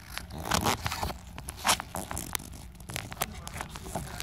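Handling noise: irregular clicks, scrapes and crinkling as a gloved hand works around the engine's belt pulleys.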